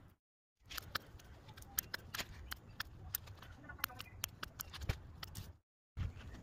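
Scissors snipping side shoots and lower leaves off tomato plants: a run of sharp, irregular clicks, broken twice by brief dropouts to silence.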